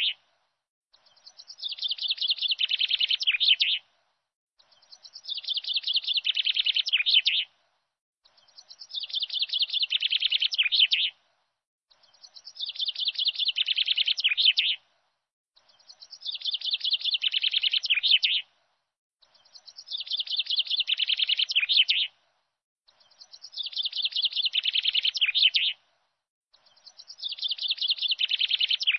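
Bird song: the same fast, high chirping trill, about three seconds long and growing louder as it goes, cuts off sharply and repeats at even spacing about every three and a half seconds, like a looped recording.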